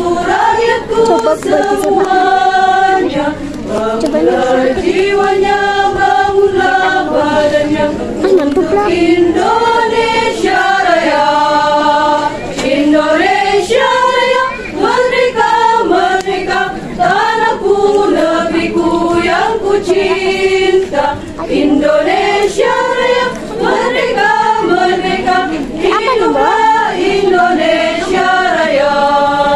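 Women's choir singing a song together, continuously.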